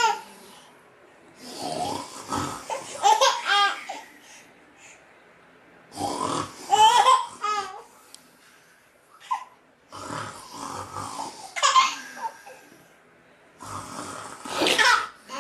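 A man's snoring sounds alternating with a baby's giggles and laughs, in about four rounds a few seconds apart.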